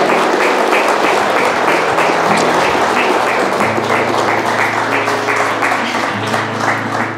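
Wedding guests applauding, with many hands clapping at once, over soft music. The clapping dies down toward the end.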